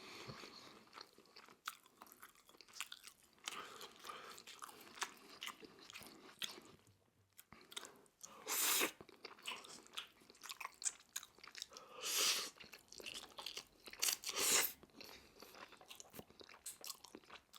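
A person chewing crunchy Korean fried chicken: a run of small wet crunching clicks, with three louder crunchy bites about halfway through and toward the end.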